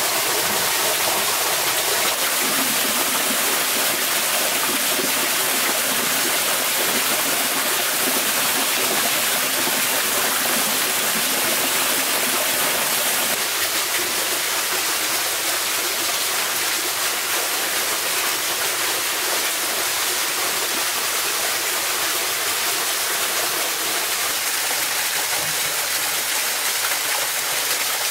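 Steady rushing of running water, an even hiss with no breaks; its lower part thins out about halfway through.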